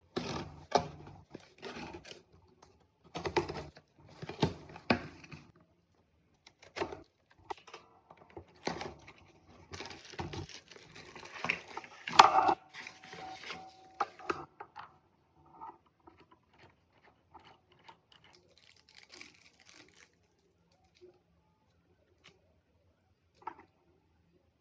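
Packaging being handled and torn open: irregular bursts of tearing and crinkling. These give way about halfway through to a few faint clicks and taps.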